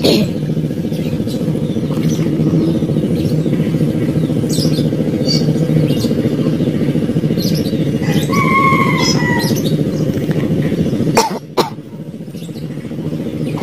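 A small engine runs steadily with birds chirping over it. Near the end there are two sharp clicks, and the engine sound drops away.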